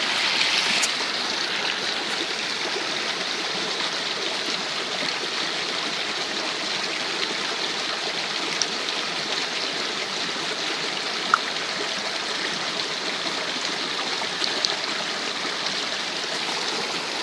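Small waterfall and stream running: a steady, even rush of water, a little louder in the first second, with a couple of faint ticks.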